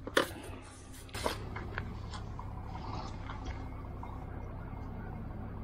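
Steady low rumble of wind and road noise from a moving VSETT 10+ electric scooter, with a few sharp knocks in the first second and a half.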